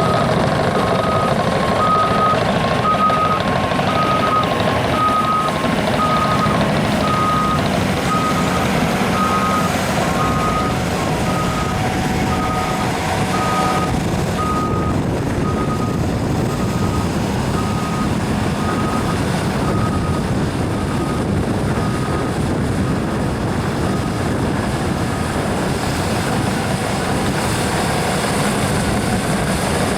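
Caterpillar D6N LGP bulldozer's diesel engine running steadily while its reversing alarm beeps a little over once a second as the dozer backs up. The beeps grow fainter and stop about three-quarters of the way through, leaving the engine alone.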